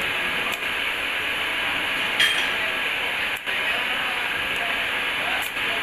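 TIG (argon) welding arc on stainless steel, hissing steadily as a flange is welded onto a corrugated bellows pipe. The hiss drops out briefly about half a second in, near the middle and near the end, with a faint click about two seconds in.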